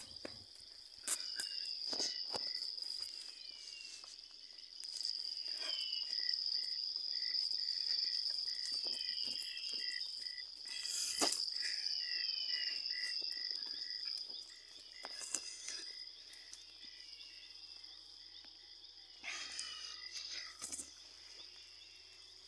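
Insects trilling steadily in a high, even pitch, louder through the middle. A second call chirps in a regular row about two or three times a second, and short falling bird calls are scattered through. A few brief clicks and knocks come from handling.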